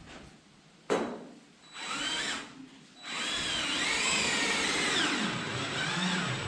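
Power drill running in bursts: a brief whine about two seconds in, then a longer run from about three seconds on whose pitch rises and falls as the trigger is worked. A sharp knock comes about a second in.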